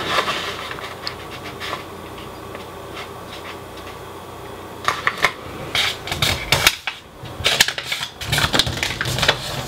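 A sheet of copy paper being folded and creased by hand: a soft steady rustle of paper sliding under the hands, then from about five seconds in a run of sharp crinkles and crackles as the sheet is handled and crunched.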